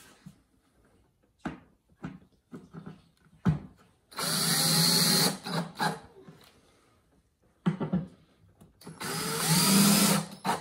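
An 18-volt cordless drill drives wood screws into pine boards. The motor runs twice, for about a second each time: once about four seconds in and again near the end. The pitch of its whine bends during each run, and short knocks and clicks of handling the screws and drill come in between.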